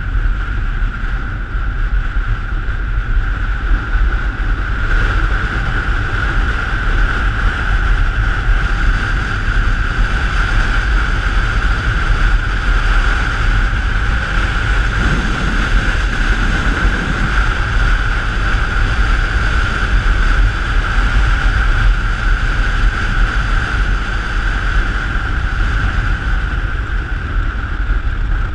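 Ice boat sailing across the ice: a steady rumble of the runners and wind rushing over the microphone, with a steady high whine over it, swelling slightly about halfway through.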